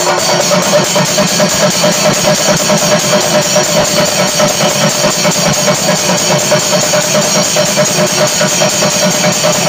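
Thayambaka ensemble at its kalasam climax: chenda drums beaten with sticks in a fast, dense rhythm over steady clashing of ilathalam hand cymbals.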